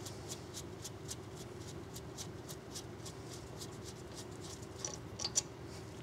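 Brake caliper slide pin bolt being unthreaded and taken out: faint, even metallic ticking about three times a second, with a couple of sharper metal clicks about five seconds in as the bolt comes free.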